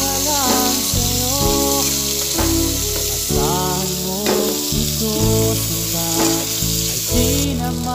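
Longganisa sausage sizzling in oil in a frying pan as it is stirred with a spatula, a steady frying hiss. Background music with a sung melody and bass plays over it.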